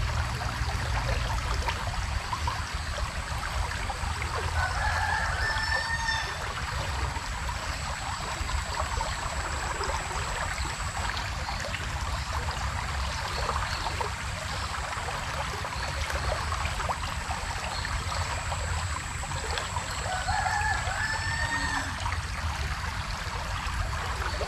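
A rooster crowing twice, about fifteen seconds apart, over the steady rush of a small river's flowing water.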